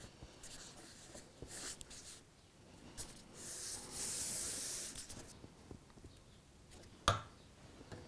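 Hands rubbing and pressing a Woodland Scenics foam track bed strip onto a wooden baseboard: soft scuffing, with a longer swish from about three to five seconds in. A single sharp tap comes near the end.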